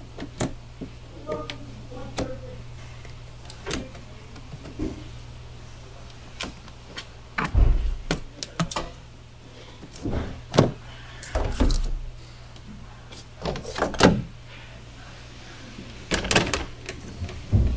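Irregular clicks, taps and several heavier thumps from hand work with tools and plastic trim around a car's wiper cowl, over a steady low hum.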